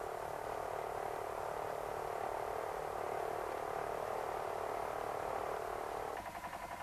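Hanomag R12 tractor's one-cylinder two-stroke D611 diesel running steadily with a dense, rasping pulse. Near the end the sound changes to a slower, distinct pulsing.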